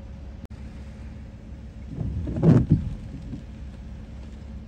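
Hurricane wind and rain noise on an outdoor microphone, steady and low, with one loud buffeting burst about two seconds in that lasts under a second.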